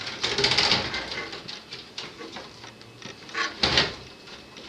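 A Corsair RM650i power supply being slid into the back of a Phanteks Enthoo Pro M case under its shroud: scraping for about the first second, then handling noise, with a short loud clatter a little over three and a half seconds in.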